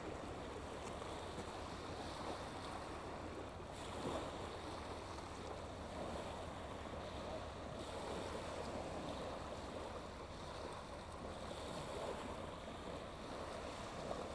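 Small waves washing onto a shingle beach: a steady wash of water that swells a little about every four seconds.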